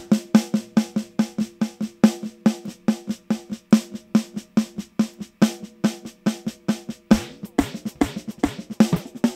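Snare drum played through an eighth-note synced analog-mode delay plugin: a quick, even run of hits and ringing repeats, about four to five a second. As the envelope follower's ceiling is raised, lower thuds and bending tones come into the repeats from about seven seconds in.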